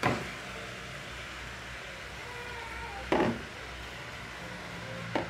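A spoon knocking sharply against a saucepan while stirring shredded chicken into the frying onion and tomato, three knocks spread over a few seconds, over a steady low hum.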